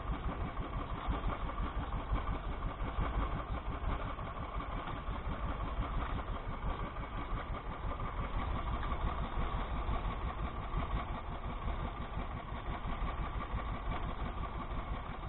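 Small boat engine running steadily, with a fast even flutter and no change in speed.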